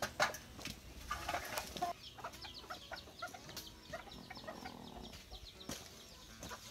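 Chickens clucking, with many short high calls and scattered knocks and rustles; a sharp knock just after the start is the loudest sound.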